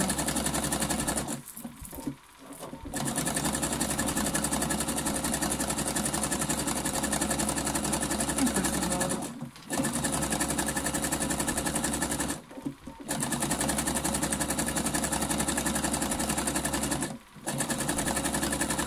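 Computerized sewing machine running a zigzag stitch as it joins the coils of a fabric-strip rope basket, a fast steady run of needle strokes over a low motor hum. It stops briefly four times: about a second in, near the middle, about twelve seconds in, and near the end.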